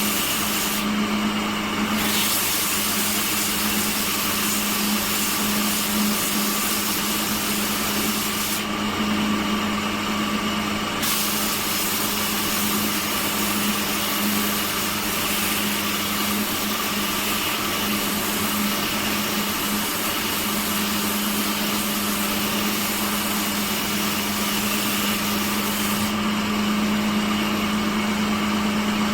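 Woodworking machine's electric motor running steadily with a constant hum under a dense hiss. The higher part of the hiss drops away briefly twice.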